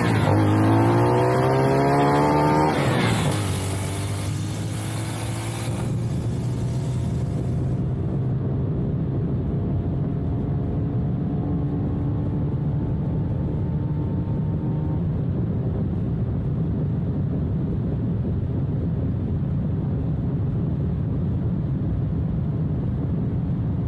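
Small motorcycle engine revving up, its pitch rising, then dropping at about three seconds as it shifts gear. It then runs steadily at road speed, slowly climbing in pitch, over a rushing noise.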